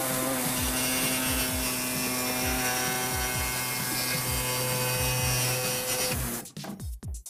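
Pneumatic reciprocating saw running and cutting an opening in a truck bed's side wall, a steady buzz with a fast, even stroke rhythm. About six seconds in it stops, then runs again in a few short bursts.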